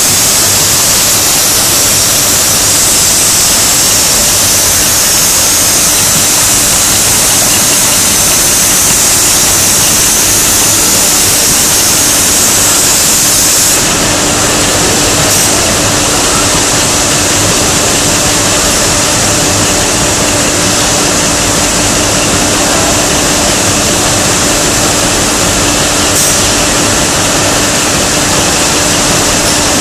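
Bank of compressed-air atomizing spray nozzles on a bakery conveyor hissing steadily as they mist the dough and the belt before the oven. About halfway through the hiss abruptly turns less bright and a steady low hum comes through under it.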